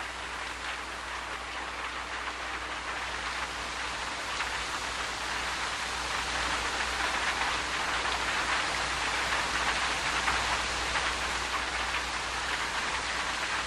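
Steady rain falling, a dense even hiss that grows gradually louder, over a faint low steady hum.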